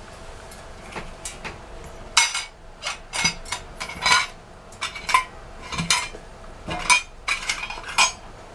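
Sharp metallic clinks and clanks, about fifteen of them, some briefly ringing, as a metal shoe-polish tin is fumbled onto the burner of a 1950s Vulcan Safety Chef camp stove to snuff its solid-fuel flame.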